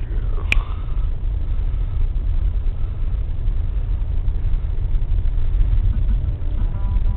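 Steady low rumble of a car's engine and tyres heard from inside the moving car, with one sharp click about half a second in.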